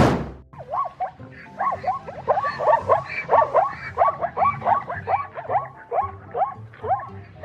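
Zebra barking: a long run of short, yelping calls, each bending up and down in pitch, repeated about three times a second.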